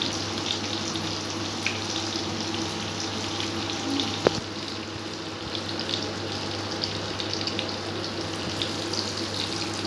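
Chapli kababs shallow-frying in hot oil: a steady sizzle with scattered crackles, and one sharp click about four seconds in.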